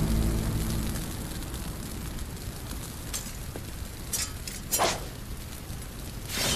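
Fire burning with a steady hiss as a low rumble dies away in the first second, with a few short sharp sounds on top, the loudest about five seconds in.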